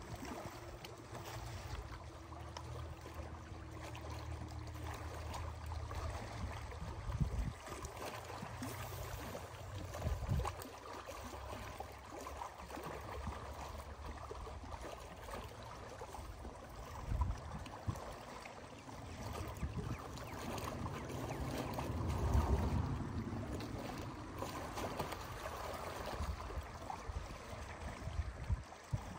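Small lake waves lapping and splashing against shoreline rocks, with gusts of wind buffeting the microphone now and then.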